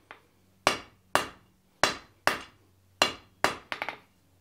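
Hand hammer striking hot S7 tool steel on an anvil: about seven ringing blows at an uneven pace of roughly two a second, with a quick rattle of light clinks near the end. This is hand-forging, beveling and rounding a leaf shape.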